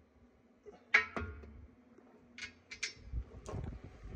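A few sharp metallic clinks and knocks, the loudest about a second in and others near the middle and end, from lug nuts and a cordless impact wrench being handled at a combine's dual wheel.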